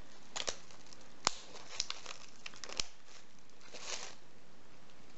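Clear plastic film crinkling as it is handled and pulled snug around a paper cup, in a few short crackles with sharp clicks in between.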